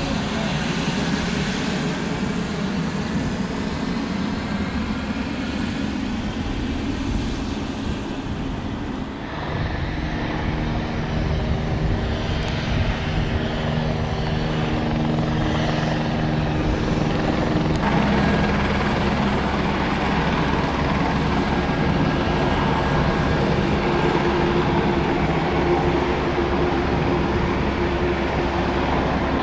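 Pilatus PC-12 NGX's single Pratt & Whitney PT6E turboprop engine and propeller running at low power as the aircraft taxis: a steady turbine whine over a propeller drone. The pitch pattern shifts abruptly twice, about a third and about two thirds of the way through.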